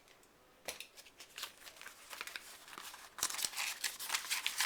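Paper and packaging rustling and crinkling as things are handled in the box, with light irregular clicks and taps; it gets louder and busier about three seconds in.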